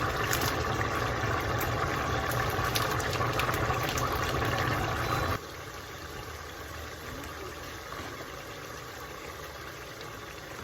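Pot of collard greens boiling on the stove: a steady rushing bubbling noise that drops suddenly to a quieter hiss about halfway through.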